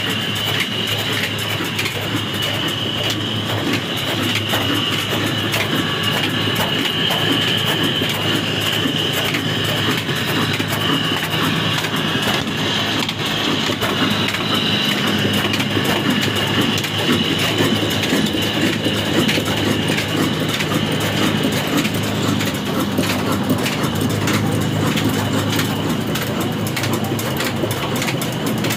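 Old 24 HP horizontal diesel engine running steadily under load with its heavy flywheels turning, belt-driving an atta chakki flour mill. Its rapid, even beat runs over a low hum, with a high whine above it.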